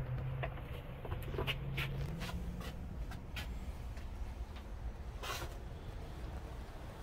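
Scattered light clicks and taps from handling and steps as the camera moves through a small trailer interior, over a low rumble and a faint hum that rises slightly in pitch about two seconds in.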